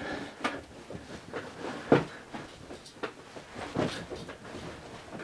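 A few scattered light knocks and clicks, the loudest about two seconds in.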